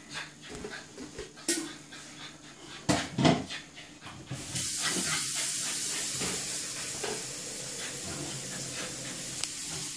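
American Bully puppy panting in quick strokes and scuffling while tugging a toy, with a few knocks and a thump about three seconds in. About four and a half seconds in, a steady hiss starts and carries on under the panting.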